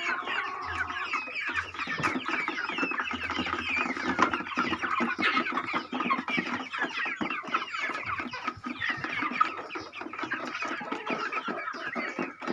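A large flock of young chickens calling all at once: continuous, overlapping clucks and chirps with no pause.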